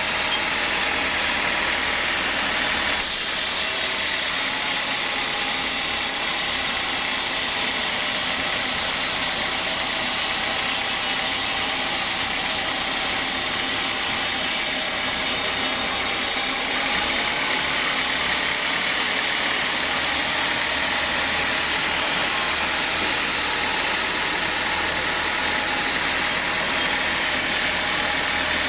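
Sawmill saw machine running steadily while sawing a teak log. A brighter, hissier sound comes in about three seconds in and drops away a little past halfway.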